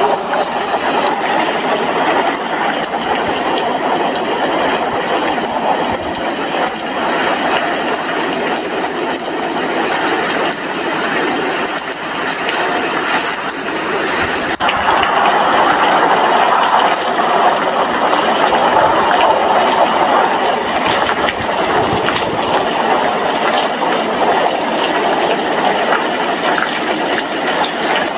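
Steady rain: a dense, even hiss of falling drops with fine patter, shifting slightly in tone about halfway through.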